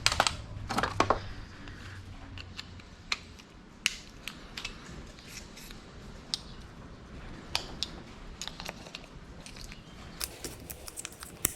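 Irregular light clicks and taps of hand tools working on a carbon fiber hood, a quick cluster at the start and more near the end.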